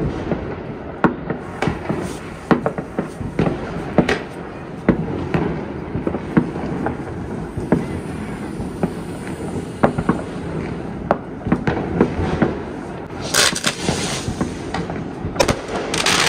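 Many New Year's fireworks and firecrackers going off at once, near and far: irregular bangs and pops of varying loudness over a steady rumble, with two louder crackling bursts near the end.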